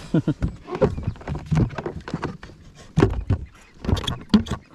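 Rustling and irregular knocks, with a few louder thumps, as a rain jacket is pulled on in a kayak, the movements bumping against the hull.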